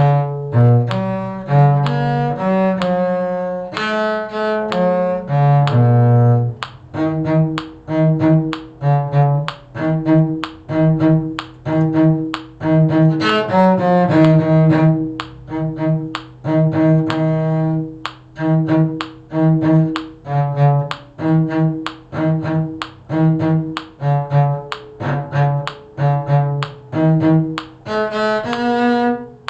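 Cello played with the bow: some longer low notes first, then, from about seven seconds in, a steady run of short, separated notes moving between a few pitches.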